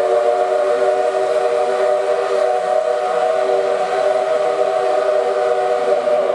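Steam whistle of the D51 498 steam locomotive sounding one long, steady blast as the train pulls out, fading near the end.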